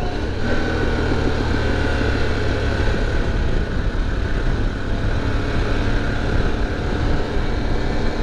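Motorcycle engine running steadily while riding, with wind noise over the microphone.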